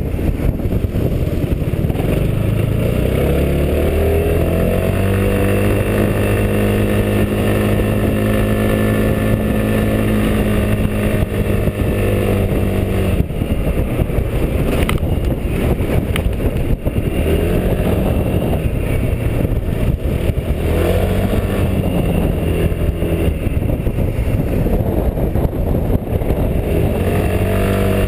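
Quadro 350D scooter engine pulling uphill under throttle, a steady rush of wind and road noise throughout. The engine note rises and then holds steady, drops about halfway through, and then rises and falls again and again as the throttle is worked.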